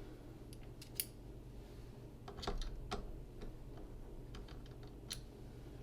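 Light, irregular clicks and taps of small tools being handled: precision screwdriver bits being picked out and fitted into a driver handle.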